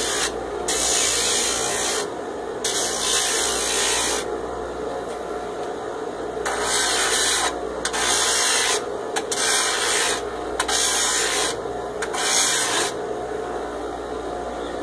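A wooden table leg sanded on a homemade belt-driven disc sander: a loud rasping hiss each time the wood is pressed to the spinning disc, in repeated passes of a second or two, with the motor running steadily in the gaps.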